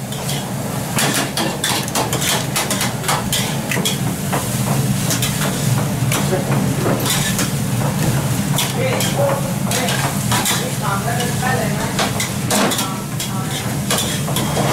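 Metal ladles and spatulas scraping and clanking in steel woks as egg fried rice is stir-fried over gas burners, in many quick strikes, with the rice sizzling. A steady low hum runs underneath.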